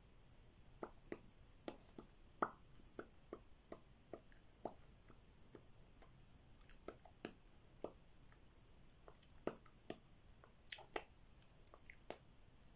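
Soft, sticky clicks of lips pressing together and parting, irregular and a few to the second with short pauses, as freshly applied nude liquid lipstick is blended by smacking the lips.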